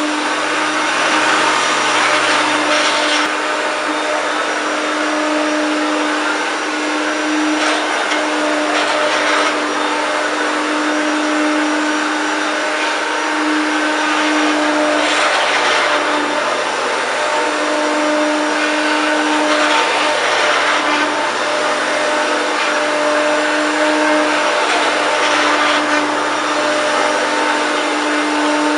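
1993 Hoover Turbopower 1 U2798 upright vacuum cleaner running continuously: a loud, steady rush of motor and airflow. Under it the motor's hum wavers and drops out every few seconds, the rough running that the owner hears in it despite mostly new parts.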